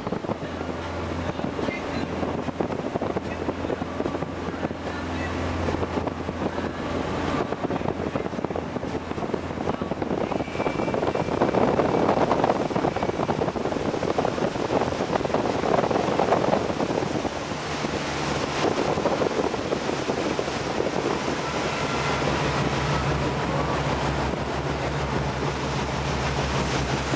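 A Regal cabin cruiser's engine runs at low harbour speed with a steady low hum, over water rushing along the hull and wind buffeting the microphone. The water wash swells for several seconds mid-way, and a lower, pulsing engine note comes up for the last part.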